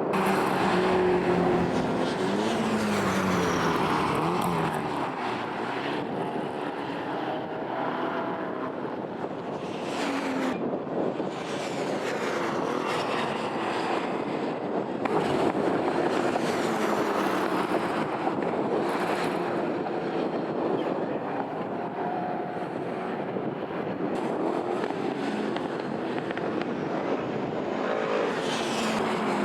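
Classic racing cars' engines at full throttle on track, several cars passing in turn. Their pitch rises and falls as they accelerate and change gear.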